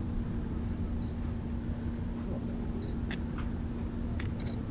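Outdoor harbour ambience: a steady low rumble under a constant low hum, with two brief high chirps and a few sharp clicks in the second half.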